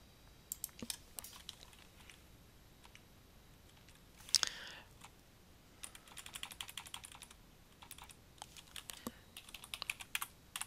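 Computer keyboard typing: scattered key clicks, then quick runs of keystrokes later on. A brief soft rush of noise comes about four seconds in.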